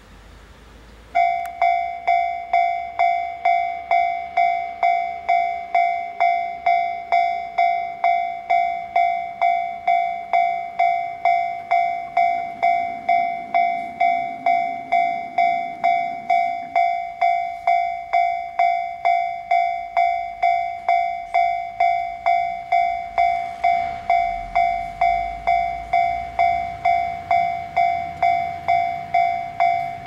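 Railway level crossing warning bell starting about a second in and ringing steadily at about two strikes a second, signalling that a train is coming and the barriers are down. A low rumble joins in over the last few seconds.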